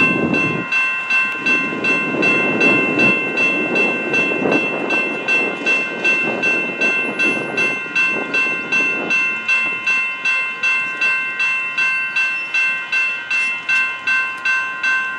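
Electronic railroad-crossing bells ringing in a steady repeated ding about twice a second. They start suddenly as the crossing activates to warn of an approaching light-rail train.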